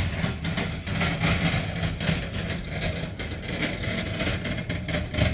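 Vehicle engine running steadily at idle, a low even hum with frequent small clicks over it.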